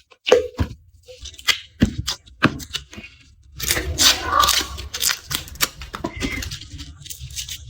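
Dry garlic skins being peeled by hand, close up: crisp papery crackling and snapping. There are a few separate sharp snaps at first, then a denser run of crinkling in the middle.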